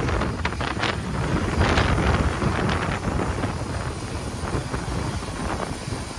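Wind buffeting the microphone in gusts over a steady low rumble.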